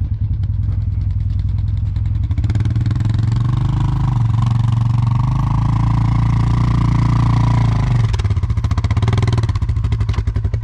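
ATV engine revving: the revs rise about two seconds in, are held high for several seconds, then drop sharply about three quarters of the way through and the engine runs on at lower revs.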